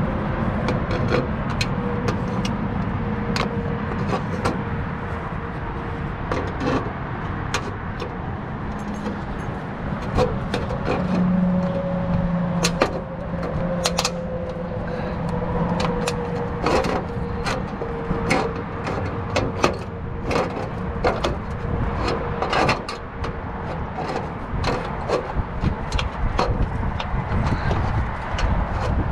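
Hand snips cutting off excess metal flashing: many irregular sharp clicks and snips over a steady hum.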